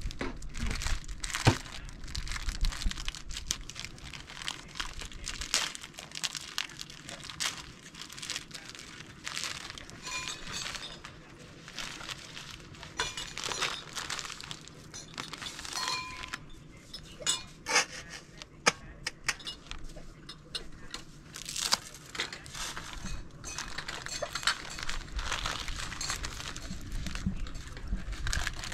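Kitchenware being handled during cooking: irregular clinks, knocks and taps of utensils and dishes, with some rustling and crinkling between them.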